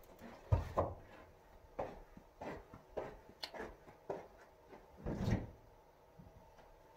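A series of short household knocks and thumps: an egg carton set down on a kitchen counter early on, footsteps, and a refrigerator door pulled open about five seconds in.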